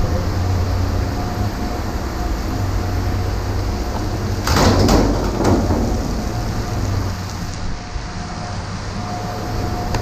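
Steady low engine rumble, with a loud scraping clatter lasting about a second and a half a little before the middle.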